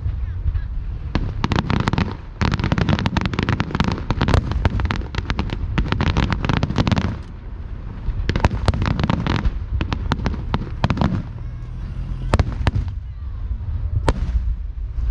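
Aerial fireworks bursting in rapid volleys: dense crackling bangs over a low rumble, coming in two long barrages with short lulls about seven seconds in and after eleven seconds, where single bangs stand out.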